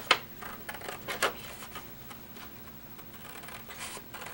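Scissors cutting heavy 32 lb cotton-fiber paper: two crisp snips about a second apart, then softer rustling and scraping of the paper as it is cut and handled.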